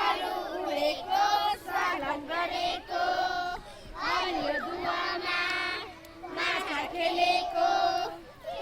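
A group of young children singing a nursery rhyme together in chorus, in short sung phrases with brief pauses between them.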